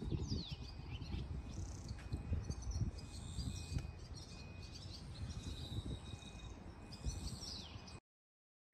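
Outdoor ambience: low, gusting wind noise on the microphone with a few short bird chirps, a couple of them sweeping downward near the start and near the end. The sound cuts to silence about eight seconds in.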